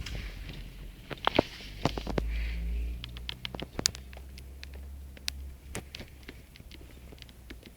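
A run of irregular sharp clicks and taps over a low rumble that fades out about two-thirds of the way through.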